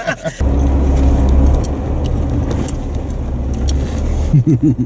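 Jeep Wrangler driving slowly on a dirt trail: a steady low engine and drivetrain drone comes up about half a second in, with scattered light clicks and rattles. A brief voice sounds near the end.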